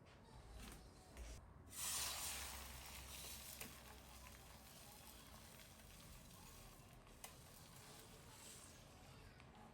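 Food dropped into hot oil in a pan, a sudden sizzle about two seconds in that dies down to a faint, steady sizzle.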